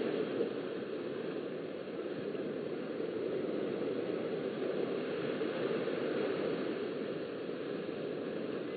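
Steady beach ambience: a low, even rush of small surf washing onto sand, with wind on the webcam's microphone.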